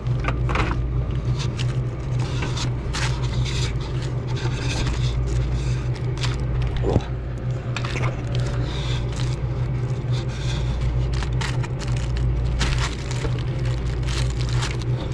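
Repeated scraping, crackling and clicking as a gloved hand pulls at foam-insulated refrigerant pipes and wiring in a ceiling space, over a steady low hum.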